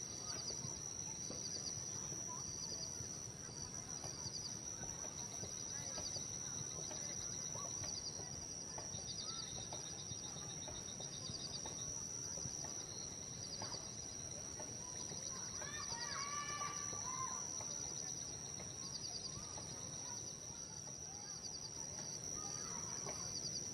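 Outdoor insect and bird ambience: a steady high-pitched insect drone with a short trilled chirp repeating about once a second, and a bird calling a few quick notes about two-thirds of the way through.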